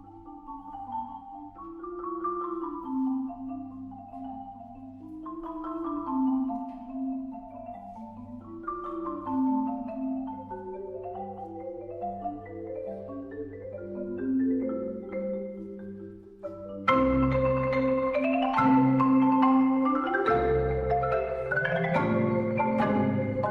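Instrumental background music: a melody of pitched notes, quiet at first, turning suddenly louder about seventeen seconds in as a deep bass and sharp percussive hits join.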